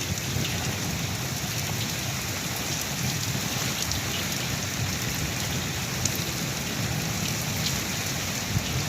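Heavy storm rain pouring steadily, with gusty wind: a very heavy downpour.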